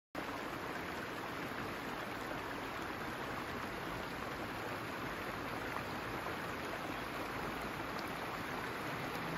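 Shallow stream running over stones, a steady rush of water.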